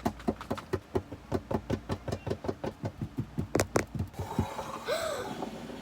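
Rapid, steady tapping on a toy, about five taps a second, stopping a little before the end.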